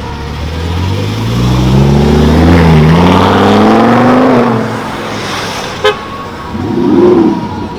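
A performance car engine accelerating hard: its pitch climbs, drops briefly at an upshift and climbs again before the car fades away. A single sharp crack follows near six seconds, and a short, quieter engine swell comes near the end.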